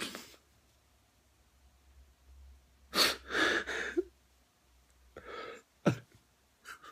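A man sniffling and sobbing into his hands: a few short, noisy breaths with pauses between them, the loudest pair about three seconds in.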